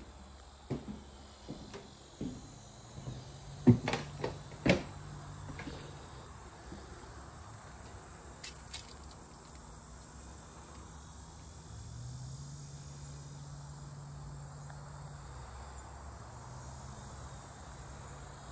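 Footsteps and knocks on bare wooden floorboards, about ten of them over the first five seconds, the loudest around four seconds in. After that a steady faint chirring of crickets outdoors, with a low hum for a few seconds past the middle.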